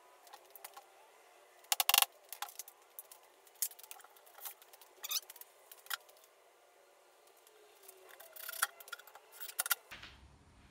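Scattered light clicks and small metallic clinks from small hardware and tools being handled while a flat-pack cabinet is assembled. A quick run of sharp, loud taps comes about two seconds in, and single clicks follow every second or so.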